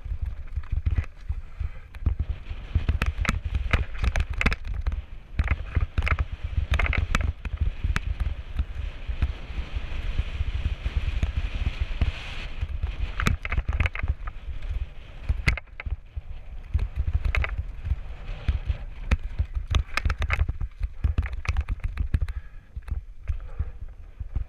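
Mountain bike descending rocky dirt singletrack: wind buffeting the camera microphone as a steady low rumble, with tyres crunching over stones and frequent sharp clicks and clatters from the bike jolting over bumps.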